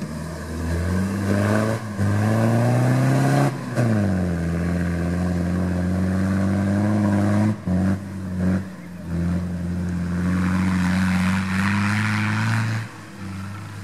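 Toyota Land Cruiser engine revving under load on an off-road course: its pitch climbs, falls back and climbs again, then holds steady, with a few brief drops in revs about halfway through.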